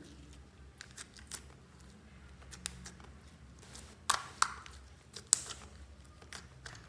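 White glitter slime being kneaded and pressed by fingers, giving scattered sticky clicks, the loudest a cluster a little after four seconds and another just past five seconds.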